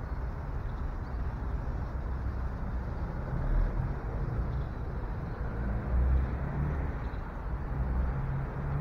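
Steady rumble of city traffic, swelling louder three times as heavier vehicles pass.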